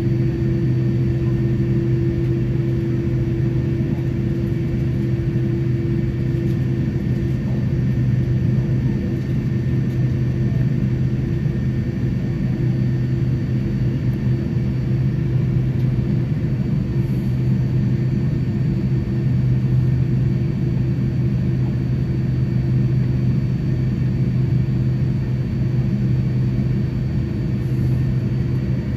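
Cabin noise of a Boeing 787-10 with its jet engines at idle while taxiing, heard from inside the cabin: a steady low hum with faint steady high-pitched tones above it.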